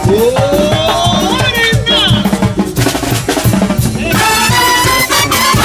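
Mexican banda music: a brass band with trumpets and drums playing, a rising slide near the start and the brass holding long chords from about four seconds in.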